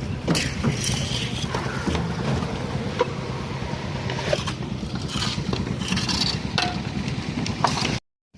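Concrete mixer machine's engine running steadily, with scattered metallic clinks and scrapes over it. The sound cuts out briefly near the end.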